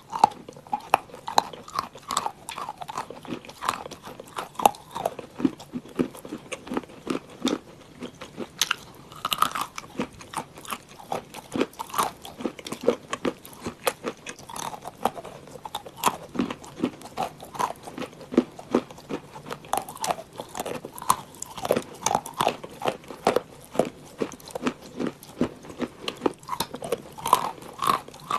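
Chunks of dry Uralochka edible clay crunching as they are bitten off and chewed: a dense, irregular run of sharp cracks, several a second.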